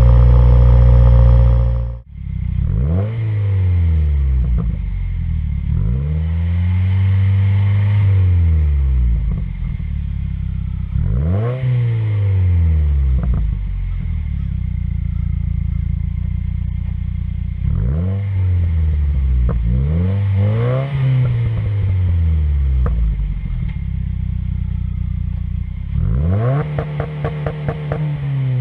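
A 2015+ Subaru WRX's turbocharged 2.0-litre flat-four running through an aftermarket exhaust, revved in short blips about six times, each climbing in pitch and falling back to idle. A held steady rev in the first two seconds cuts off abruptly.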